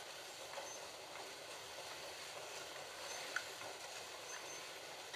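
Several Slot.it Ford GT40 slot cars running laps together on a plastic slot track, a steady whirring rush of small electric motors and tyres on the track, with one sharp click a little over three seconds in.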